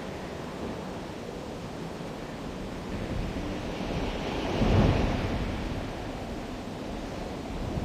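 Steady rushing noise with a deep rumble that swells about halfway through and then eases.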